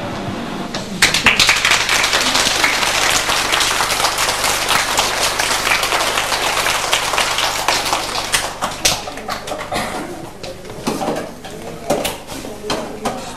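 Audience clapping: many hands, dense from about a second in and thinning out after about eight seconds into scattered claps and voices.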